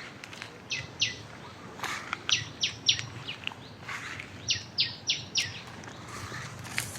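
A bird calling in short runs of sharp, falling notes: two, then three, then four in quick succession. A few crunching footsteps on dry leaves fall between them.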